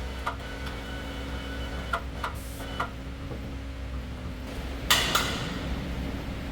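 A steady low hum with a few light knocks and a short hiss, then a louder knock about five seconds in.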